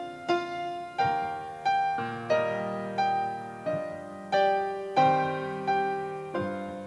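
Slow, gentle piano music: single notes and chords struck every half-second or so and left to ring out and fade.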